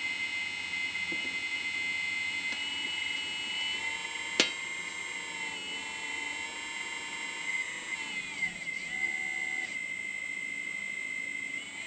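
Kabolite 970 RC hydraulic excavator's pump running with a steady high whine, wavering and dipping in pitch near the end as the boom and bucket move under load. A single sharp click about four and a half seconds in.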